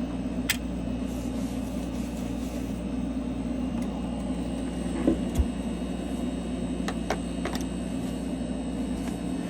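Steady low machine hum, with a few light clicks and taps of work on the bench: one about half a second in, a pair around five seconds, and a couple around seven seconds.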